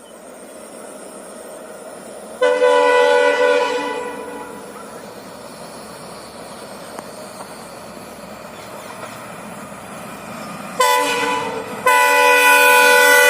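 Indian Railways WDG4D diesel locomotive horn sounding three blasts: one of about a second and a half, then near the end a short blast followed by a longer one. Underneath, the rumble of the approaching train grows steadily louder.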